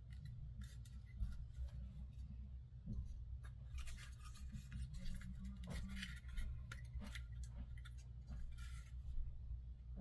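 Scattered light clicks and scratching of small parts being worked by hand at a workbench, over a steady low hum.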